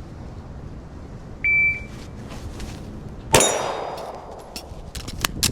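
A shot timer gives a short, steady high beep. About two seconds later a single 9mm shot from a Glock 43X compact pistol goes off, loud and sudden, with a long echoing tail, followed by a few faint clicks.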